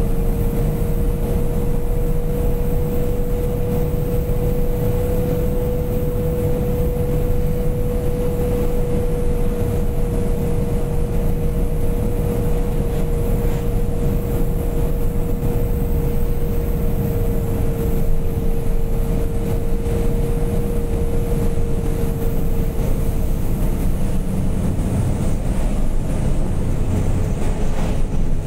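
Fully loaded Chinese-made truck driving at a steady cruise, heard from the cab: a constant low engine and road rumble with a steady whine over it.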